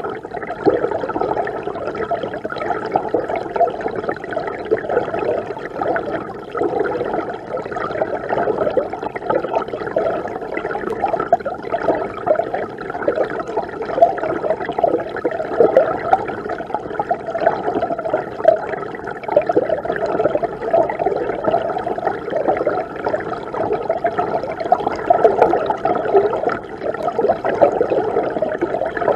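Mountain river water rushing and churning steadily, heard from inside the river itself, so the sound is muffled and dull with little hiss.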